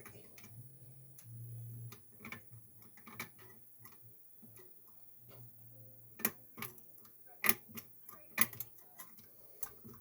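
Irregular small metallic clicks and ticks of lever-lock picking tools working the levers inside an ERA Pro Fit sash lock, the loudest few clicks coming in the second half as the lock nears opening.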